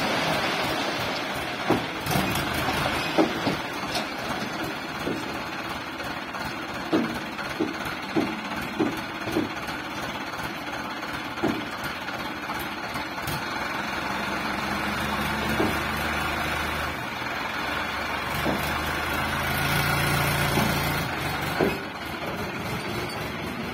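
Mahindra Arjun tractor's diesel engine running under load while pulling a trolley stuck in mud; the revs build up over the second half and drop back near the end. Short knocks sound now and then over the engine.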